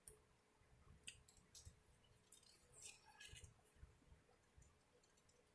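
Near silence, with a dozen or so faint, short clicks scattered irregularly through it.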